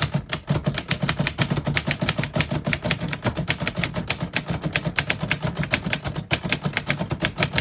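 Typing on a 1924 Underwood 3-bank portable typewriter: a rapid, fairly even run of sharp key strikes, about seven a second, with a brief pause a little past six seconds in.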